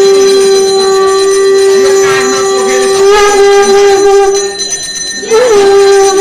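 Conch shell (shankha) blown in a long, steady held note. It breaks off briefly about four and a half seconds in, then sounds again with a short wobble in pitch.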